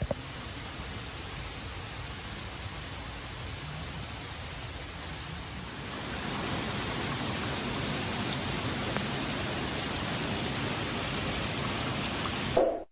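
A steady high-pitched drone of forest insects over an even rush of falling water from a small waterfall. It cuts off suddenly near the end.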